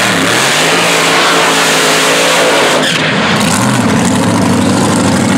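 Drag-racing dragster's engine held at high revs during a burnout, its rear tires spinning. The sound changes about three seconds in as the car pulls away.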